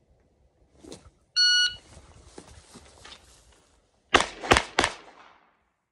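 A shot timer's start beep, then about three seconds later three handgun shots in quick succession, fired from a concealed-carry draw. The last shot comes about 3.4 seconds after the beep, the time the timer records for the string.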